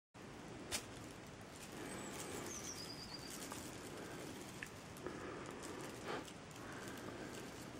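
Faint sounds of kittens' paws padding and thumping on a rug as they pounce at a feather wand toy: a few soft knocks over a steady hiss, with a thin high chirp that falls in pitch about two seconds in.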